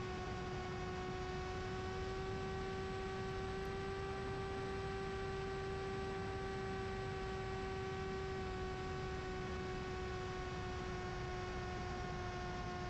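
Steady hum of the Mini Drak flying wing's electric motor and pusher propeller, holding one pitch with a row of overtones, over a steady wash of wind noise.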